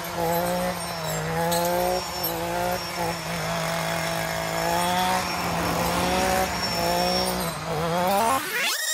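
Small two-stroke engine of an Echo PAS-2620 power head spinning a brush-cutter blade through brush, its speed rising and falling unevenly as the blade bites. Near the end the revs climb sharply.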